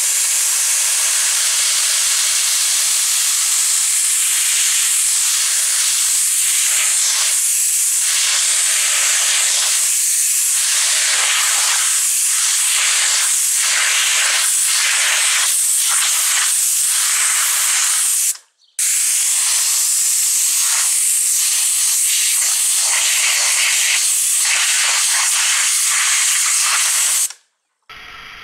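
High-pressure washer jet hissing steadily as it blasts a salami on concrete, the hiss flickering as the spray breaks up against the meat. It cuts out for a moment about two-thirds through, comes back, and stops just before the end.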